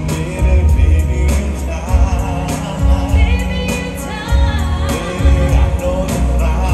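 Live R&B concert music played loud through an arena sound system: singing over a heavy, pulsing bass beat.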